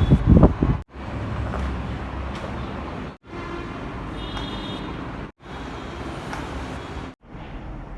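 Steady low rumble of background noise, louder and pulsing in the first second, that cuts out abruptly to silence four times. A faint high tone sounds briefly near the middle.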